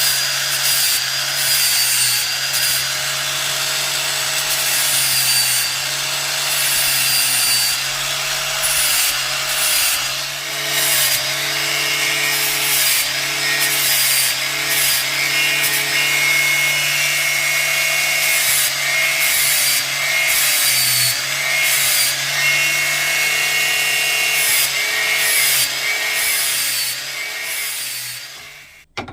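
Angle grinder running continuously and grinding on metal, its motor pitch wavering and dipping as it is pressed into the work. It cuts off near the end.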